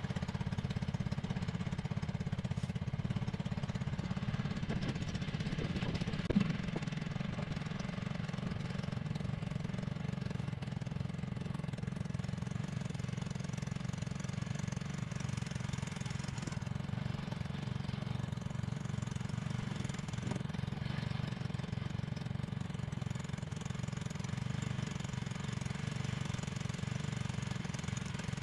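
Outrigger boat's small engine running steadily with an even, rapid chugging beat, with one sharp knock about six seconds in.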